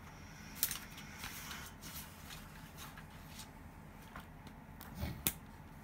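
Quiet rustling and handling of a model kit's plastic packaging, the bag around a parts runner being moved, with a few sharp clicks, the loudest about half a second in and near the end.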